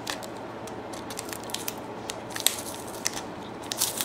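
Packaging being handled and opened by hand: irregular crinkles and crackles of paper or plastic, the sharpest about two and a half seconds in.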